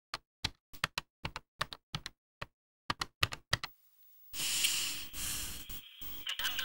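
Buttons on a push-button desk telephone being pressed in quick succession, a run of short plastic clicks about three or four a second. A little past halfway the clicks stop and a steady hiss starts.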